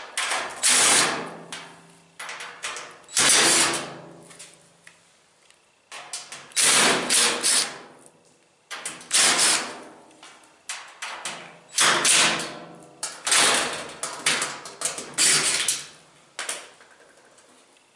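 Irregular run of loud metallic bangs and clatters from the washer's sheet-metal and mechanical parts being struck and worked loose during disassembly, each hit ringing briefly.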